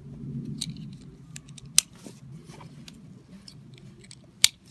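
Stroller harness straps being handled, with fabric rustling and small plastic ticks, and two sharp clicks, one just under two seconds in and a louder one near the end as the plastic harness buckle is pressed together.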